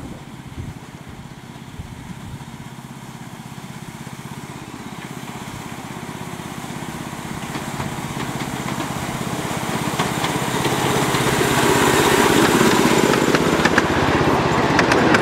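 Small petrol engine of a 7.25-inch gauge petrol-hydraulic miniature locomotive running steadily, growing louder as it approaches and passes. A few sharp clicks come near the end as the carriages go by.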